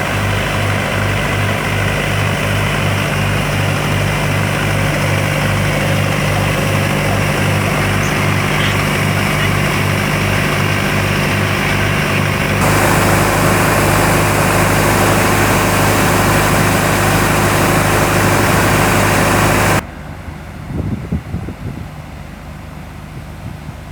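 Shotcrete machine running with a steady hum and a regular pulse about twice a second. About halfway through, a louder rushing hiss of compressed air and sprayed concrete joins in. Both stop suddenly near the end, leaving only wind on the microphone.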